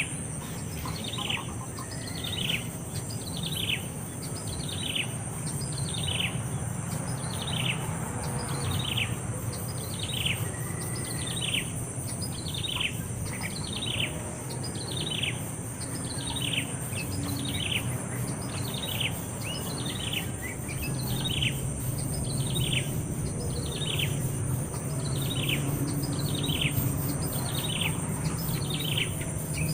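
A bird calling over and over, each call a short note sliding downward in pitch, about three every two seconds, over a steady high buzz.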